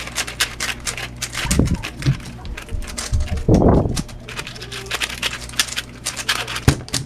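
Rapid, irregular clicking of a speed cube's layers being turned during a timed solve, with one short dull thud about three and a half seconds in.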